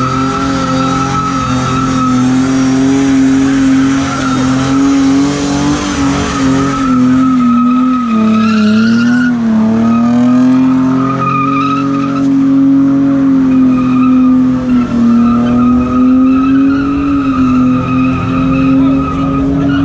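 Car engine held at high revs while the spinning tyres screech and hiss on tarmac in a smoky burnout. The revs sag and waver about eight to ten seconds in, then pick up again.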